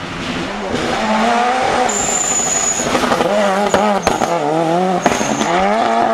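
Rally car engine revving hard and unevenly, its pitch swinging up and down over a few seconds, with high tyre squeals coming and going.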